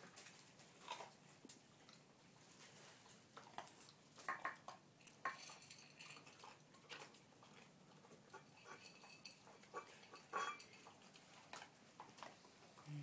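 Dogs eating from food bowls: faint scattered clicks and clinks of food and bowls, with a few louder knocks.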